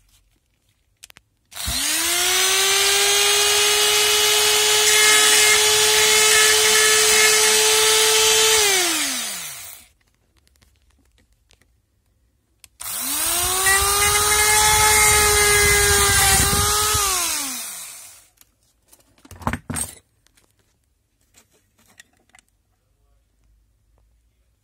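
Small handheld rotary tool with a pink abrasive point, grinding small holes into a plastic battery cell holder. It runs twice for several seconds each: it spins up quickly to a steady high whine and winds down with a falling pitch. In the second run the pitch dips briefly as the bit bites. A brief clatter follows about two seconds after it stops.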